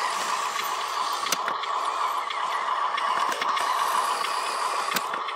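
Electric drive motor and gearbox of a Huina RC dump truck running steadily as it drives loaded over dirt, a continuous whine with a few sharp clicks.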